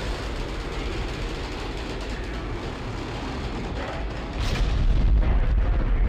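Space Shuttle main engines running at ignition with a steady rushing noise, then about four seconds in the solid rocket boosters ignite with a sudden crack and a much louder, deeper rumble: the moment of liftoff.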